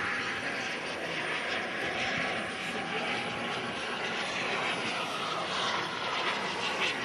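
Steady rushing whine of a model aircraft's gas-turbine engine running at a distance. A faint thin tone in it slides slightly lower over the first couple of seconds.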